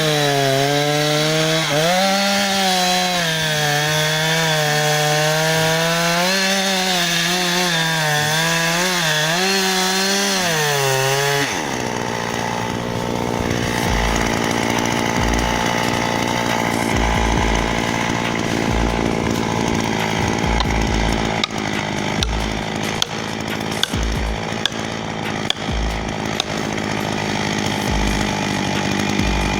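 Chainsaw engine running hard, its pitch wavering up and down as it bogs and recovers in the cut. About eleven seconds in the pitch drops off sharply, giving way to a lower, steadier machine hum with scattered knocks and cracks.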